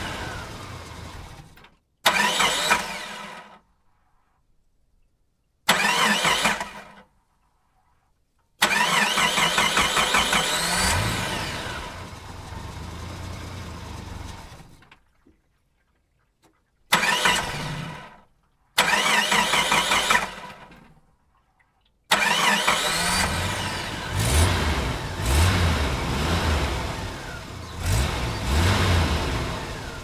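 A car engine being started again and again, as separate takes. Several are short starts that fade out within a second or two. One settles into a steady idle for several seconds, and the last one is revved several times after it starts.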